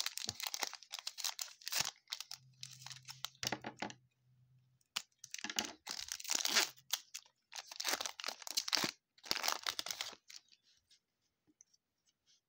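Shiny trading-card pack wrapper being torn open and crinkled by hand, in about five bursts of tearing and crackling.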